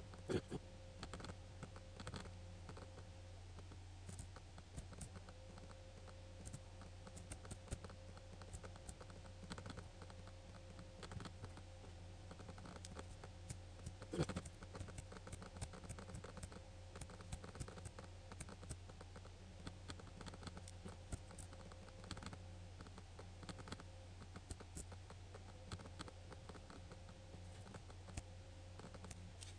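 Faint, irregular clicking of a computer mouse and keyboard over a steady low hum, with one louder click about halfway through.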